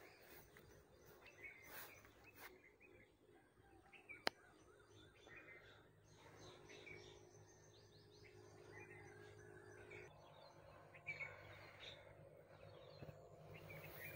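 Near silence: faint outdoor ambience with scattered short bird chirps, and a single sharp click about four seconds in.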